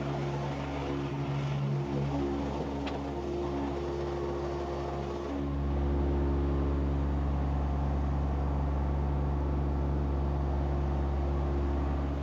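An engine running steadily, getting louder and stronger about five and a half seconds in, as if throttled up or put under load.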